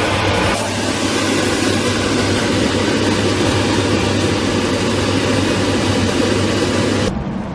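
A loud, steady mechanical rushing noise with a low hum underneath, dropping off suddenly near the end.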